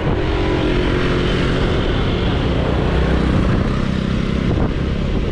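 Motorbike engine running steadily while riding along a city street, over a constant hiss of road and traffic noise.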